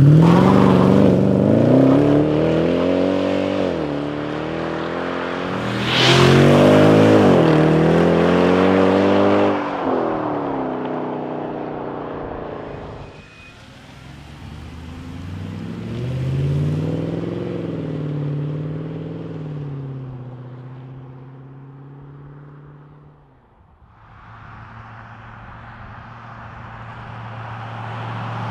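Mercedes-Benz ML63 AMG V8 accelerating hard several times, its engine note climbing and dropping back at each upshift, with loud surges near the start and about six seconds in. Near the end it settles to a steady low drone and then grows loud as the car comes closer.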